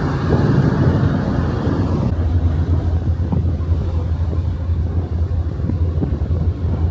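Wind on the microphone over the rush of the sea from a ferry's deck, giving way abruptly about two seconds in to a steady low hum of the ship's engines.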